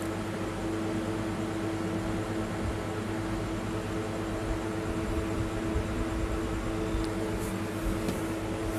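A steady mechanical hum with an even hiss beneath it and a constant tone, with a few faint clicks near the end.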